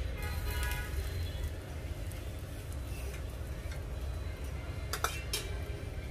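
Metal cooking utensils clinking and ringing against a pan or griddle over a steady low rumble. Two sharp metal clicks come about five seconds in.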